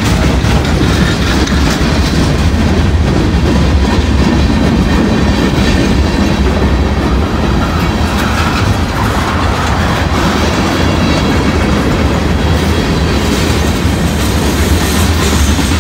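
Freight train cars (gondolas, tank cars, hoppers and boxcars) rolling past on steel wheels. The rail noise makes a loud, steady rumble.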